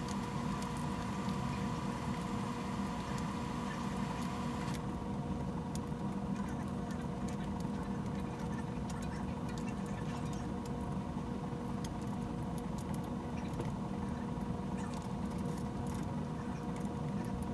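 A screw being turned by hand into a Mossberg 500 shotgun's rear sling point: faint small clicks and scraping of the tool and metal parts. Under them runs a steady hum.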